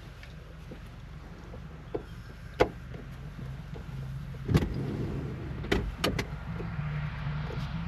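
A few sharp clicks and knocks from hands and tools working on a car's interior trim and fittings, over a steady low hum.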